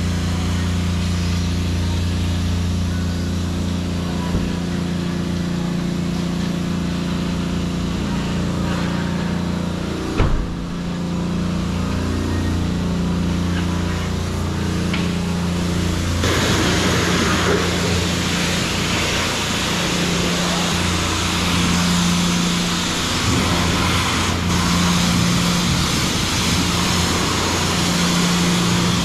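Self-service car wash high-pressure spray wand: a steady low hum, then from a little past halfway the hiss of the water jet spraying onto the car's body. A single knock about a third of the way in.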